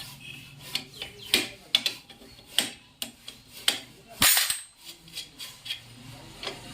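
Hand tools and metal parts knocking and clinking irregularly during work on a motorcycle drum brake, with a louder clatter a little past the middle.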